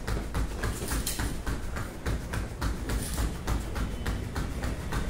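Bare feet slapping rhythmically on foam floor mats, about four quick footfalls a second, as the legs switch back and forth in a fast exercise.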